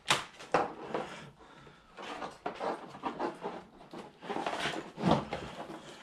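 Loose wires and plastic plugs of a stripped Jeep TJ wiring harness being handled and pulled through the bundle: irregular rustling with light clacks, the sharpest right at the start, about half a second in and about five seconds in.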